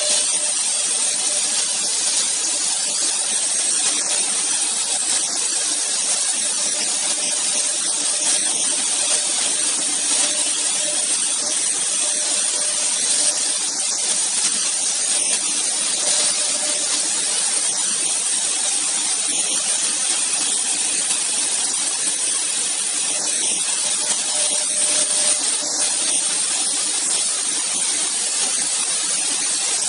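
The two spindles of an AKM1325-2 double-head CNC router cutting grooves into a wood panel: a steady, loud, hiss-like cutting noise with a faint hum that comes and goes.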